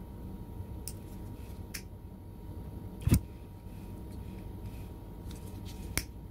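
A short, low puff of breath about three seconds in, blowing out a lighter flame on enamelled earphone wires, the loudest sound here. A few faint clicks come before it, and near the end a sharp click as the lighter is struck again.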